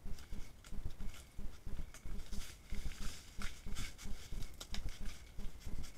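Giant anteater clawing at the trunk of a pequi tree as it tries to climb: a run of dull thumps, about three a second, with scratchy rasps through the middle.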